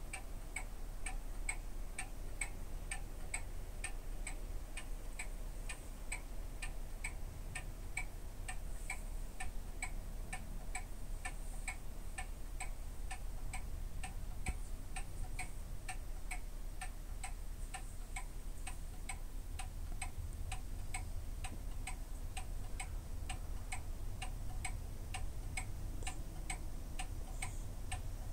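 Regular ticking, about two ticks a second, over a low steady hum.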